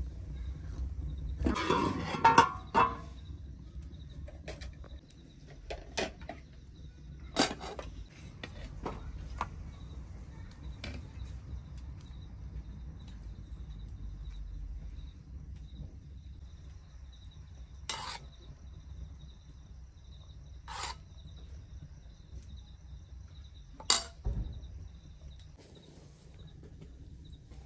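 Ladle, metal pot and plates clinking and knocking as thick soup is ladled out and served: a burst of clattering near the start, then scattered single clinks, one loud one near the end. Crickets chirr steadily in the background.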